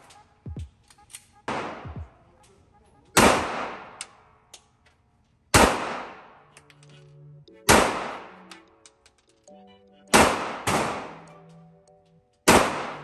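A 9mm Glock 19X pistol firing a string of single shots in an indoor range lane, about seven in all, spaced two to three seconds apart, with two close together about two-thirds of the way through. Each shot has a short echoing tail, and there are faint clicks between the shots.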